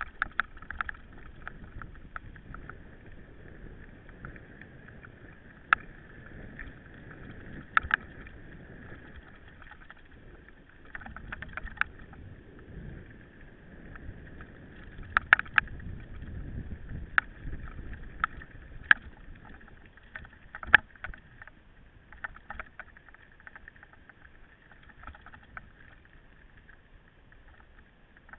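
Mountain bike riding over a rough track: steady tyre and wind rumble, with sharp rattles and knocks from the bike over bumps, loudest several times in the middle.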